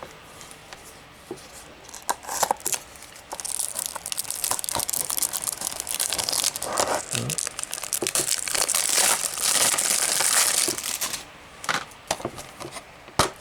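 Plastic shrink-wrap being torn and peeled off a 4K Blu-ray steelbook case: a loud crinkling and tearing from about three seconds in until about eleven, with scattered clicks and taps of the case being handled before and after.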